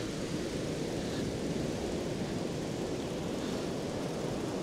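Sea surf washing on the shore: a steady low rush of breaking waves.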